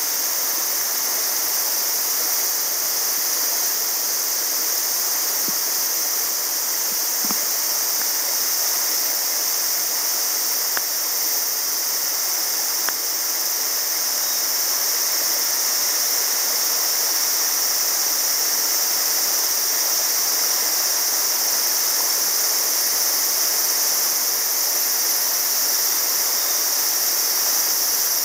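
A shallow mountain river running over rocks and through rapids, making a steady rushing of water.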